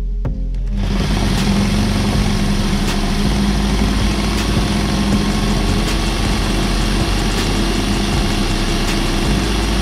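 Electric drill driving a Müller reciprocating-saw adapter, its blade sawing through a wooden board. Starts about a second in and runs steadily with a constant hum under the rasp of the cut.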